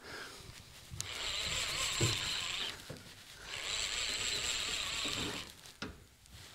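Surfcasting reel buzzing in two bursts of about two seconds each while a hooked snapper is fought on the line.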